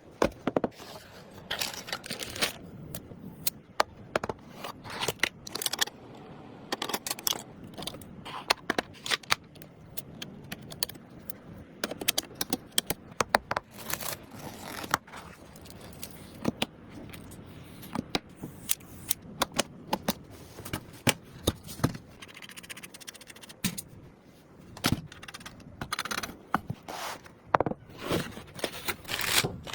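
Computer parts being handled and fitted during a PC build: irregular sharp clicks, snaps and short scrapes of plastic and metal, with rustling of packaging.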